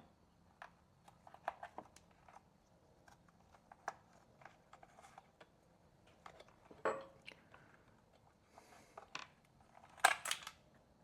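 Light, scattered clicks and taps of tools and small chainsaw parts being handled during a workbench repair, with a louder knock about seven seconds in and a quick run of sharper clicks near the end.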